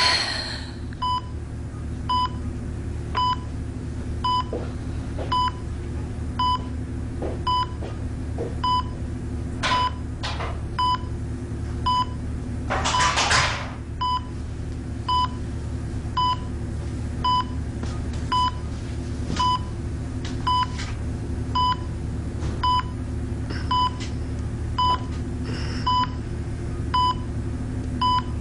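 Hospital patient monitor beeping steadily, a short high beep roughly once a second in time with the patient's heartbeat, over a low steady hum. A brief rustle about thirteen seconds in.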